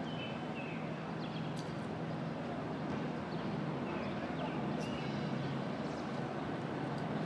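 Outdoor city background noise: a steady low hum and even rushing noise, like distant traffic, with a few short high chirps.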